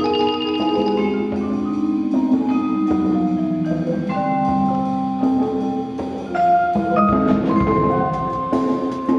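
High school percussion ensemble playing: rolled and held notes on mallet keyboard instruments, with a low drum rumble swelling in about seven seconds in.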